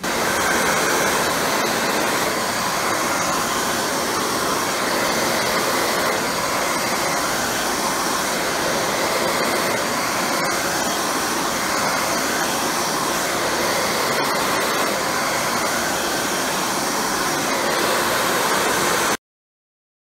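Hand-held hair dryer blowing loud and steady at close range, then cutting off suddenly near the end.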